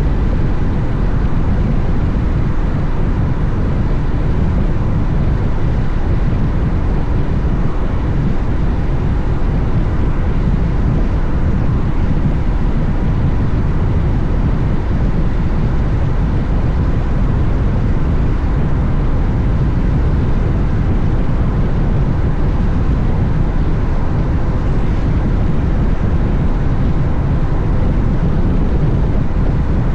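Steady wind rush on the microphone over the engine and road noise of a Honda X-ADV motorcycle riding at an even speed, with no change in pace.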